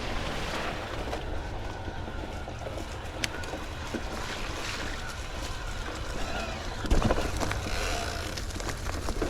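Riding noise from a mountain e-bike on a dirt trail: steady rumble of tyres and wind buffeting the mounted microphone. A couple of sharp knocks from the bike jolting over bumps, the louder one about two-thirds of the way in.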